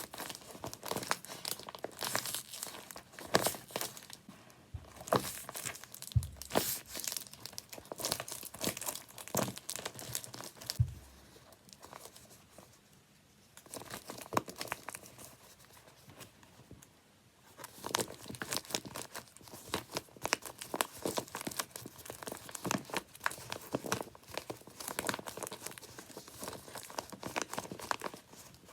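Handmade paper squishies, taped paper, being squeezed and handled, crinkling and crackling in quick irregular bursts, with a quieter stretch around the middle.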